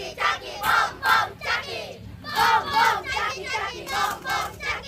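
A group of children's voices chanting together in a rhythmic, shouted cheer.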